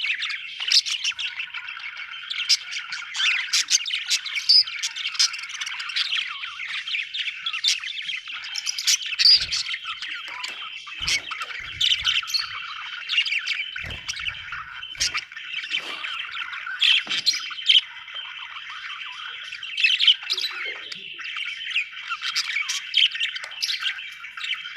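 Budgerigars chirping and chattering nonstop, with sharp squawks throughout. A few faint low thumps come about halfway through.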